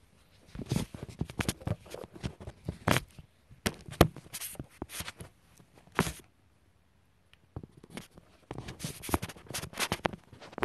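Handling noise from a handheld phone being moved about: irregular scrapes, rustles and knocks against the microphone, in two busy spells with a short lull about two-thirds of the way through.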